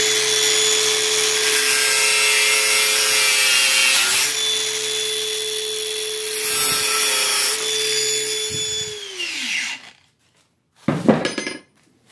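Cordless angle grinder running at steady speed, its note dipping under load about four seconds in and again around seven seconds, then released and spinning down near the end. The tool is then set down with a short knock.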